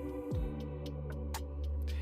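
Background music: a song beat with a deep bass that slides down in pitch near the start and a steady ticking hi-hat.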